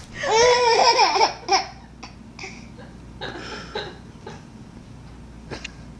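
A baby laughing: one loud, high-pitched peal of laughter in the first second and a half, then shorter, quieter bursts of laughter.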